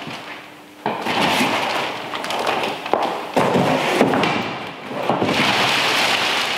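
Clear plastic packaging film crinkling and rustling as it is handled and pulled off a grill, with a few knocks of stiff cardboard packing pieces being pulled away. The crinkling grows steadier and louder in the last second and a half as the wrap is lifted off.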